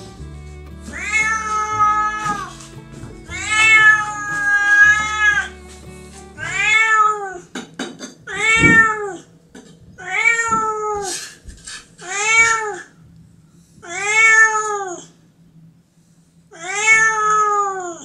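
Calico cat meowing again and again, about eight drawn-out meows a second or two apart, each rising and then falling in pitch, one held longer than the rest.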